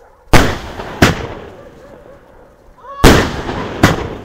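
Homemade fireworks cake firing comets and small can shells: four sharp bangs in two pairs, the first pair just after the start and the second about three seconds in, the first bang of each pair the loudest.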